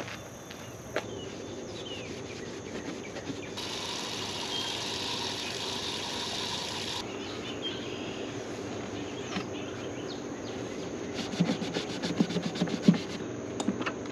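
Outdoor ambience with insects buzzing steadily, the buzzing denser and louder for a few seconds in the middle. A run of knocks and clicks comes near the end.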